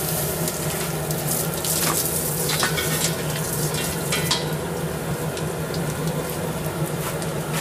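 Gas forge running with a steady hissing roar over a low hum. A few light clicks sound partway through.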